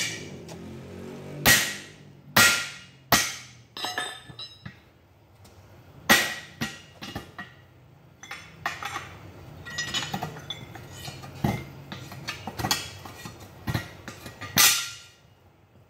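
Sharp metal-on-metal strikes and clanks as a truck wheel's steel split lock ring is worked loose from the rim with a wedge and pry bar. Three hard, ringing blows come about a second apart near the start, then scattered lighter clanks, and one more loud strike near the end.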